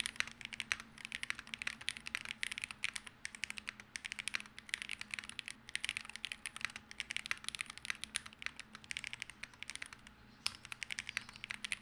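Fast typing on an Epomaker Magforce68 Hall effect keyboard with Gateron magnetic switches: a quick, continuous run of keystrokes with a brief pause near the end.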